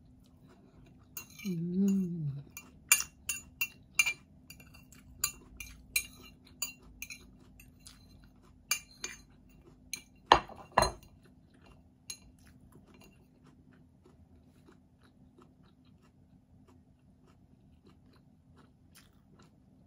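Metal fork clinking and scraping against a plate while picking up food, a run of sharp clicks through the first twelve seconds or so, with two louder knocks about ten seconds in. A short hummed "mm" from the eater about two seconds in.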